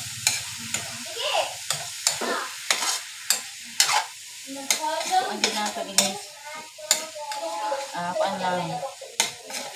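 Spatula scraping and clinking against a wok as diced meat is stirred, over the sizzle of the meat frying in oil as it is browned.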